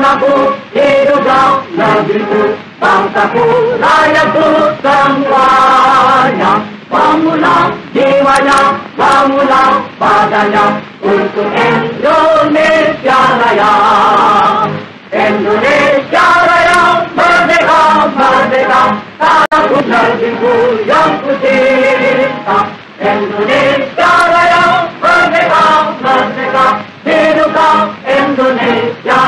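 A choir singing a song with music, in continuous sung phrases.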